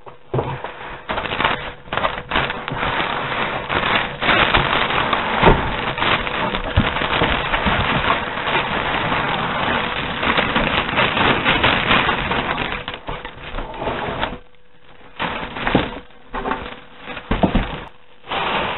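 Plastic wrapping crinkling and rustling continuously as hands pull it off a computer case, then breaking into a few short rustles and handling knocks near the end.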